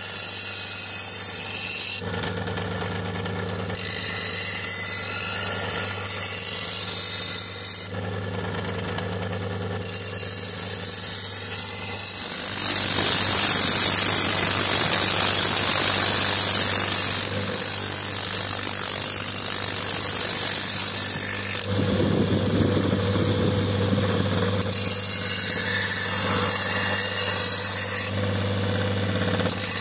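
Motor-driven abrasive grinding wheel running with a steady hum while a leaf-spring steel cleaver blade is ground against the disc to sharpen its edge. The grinding is a harsh hiss, loudest from about 12 to 17 seconds in, and lighter and rougher later on as the blade is worked again.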